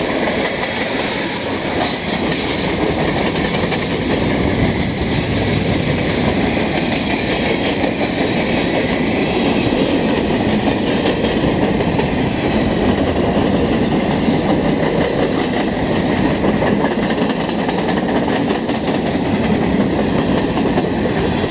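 Freight train cars (boxcars, tank cars and centerbeam flatcars) rolling past close by: a loud, steady noise of steel wheels running on the rails that holds even throughout.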